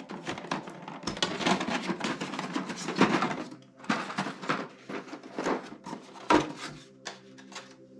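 Plastic board-game trays being lifted out of a box and handled: a quick run of light plastic clicks, rattles and knocks that thins out after about four seconds, with one sharper knock a little after six seconds.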